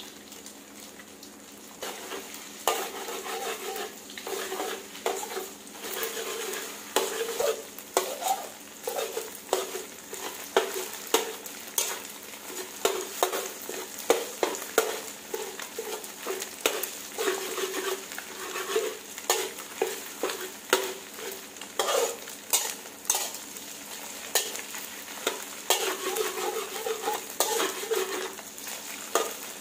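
Eggs sizzling in hot oil in a wok, scrambled with a metal spatula that scrapes and knocks against the pan. The stirring starts about two seconds in and goes on with frequent sharp scrapes and taps over the sizzle.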